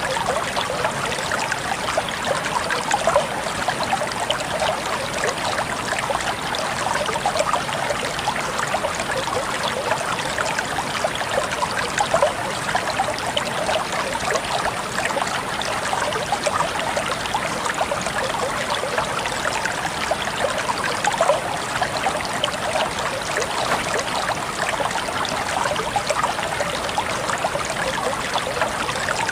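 Water running and trickling steadily, a constant babble of small splashes like a shallow stream.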